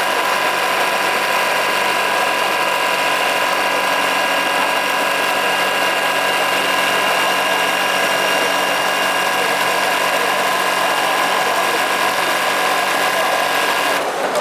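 Kingtex GLK-1790 computer-controlled lockstitch buttonholing machine running at high speed, sewing an extra-long buttonhole through denim: rapid, even mechanical clatter with a steady high hum, stopping near the end as the cycle finishes.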